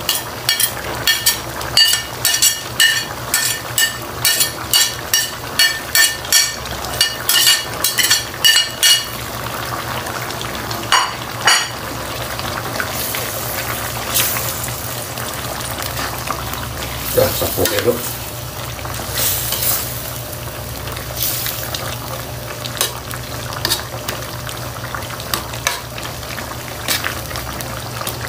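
Metal ladle clinking against a plate, about two ringing taps a second for the first nine seconds or so, as malunggay leaves are knocked off into the pan. Then coconut-milk stew simmering with a steady sizzle while a ladle stirs it, with a few scrapes and knocks.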